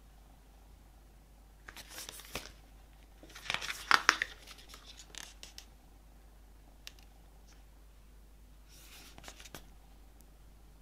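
Paper and cardboard album contents handled by hand: rustling and crinkling in a few short bursts, loudest about four seconds in, with scattered light clicks and taps between them.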